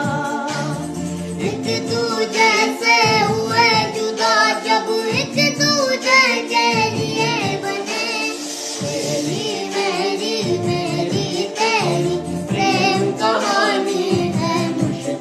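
Background song: a high-pitched voice sings a wavering melody over a steady instrumental accompaniment.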